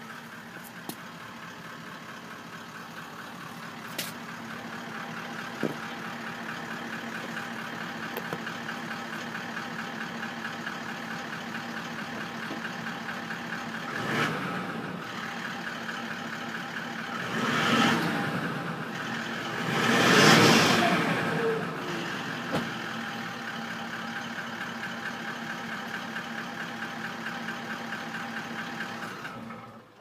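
Toyota LandCruiser 76 Series 4.5-litre V8 turbo-diesel idling steadily through its factory exhaust, heard at the tailpipe. It is blipped three times in the middle, the last rev the loudest.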